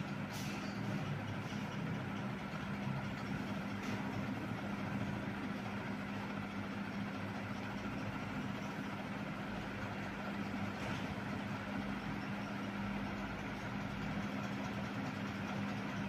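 Panasonic F-560Z2 56-inch industrial ceiling fan running steadily, a constant motor hum under the rush of air from the spinning blades.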